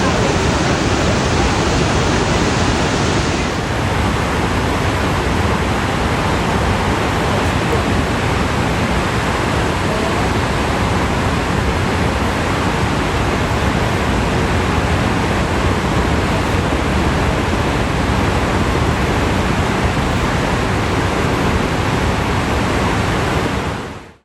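Loud, steady rush of water from the Iguazu Falls, a dense even noise with no breaks. Its tone shifts slightly about three and a half seconds in, and it cuts off suddenly near the end.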